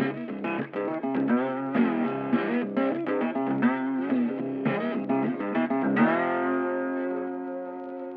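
Guitar music: a quick lead line with sliding, bent notes, then a held chord about six seconds in that rings out and fades away.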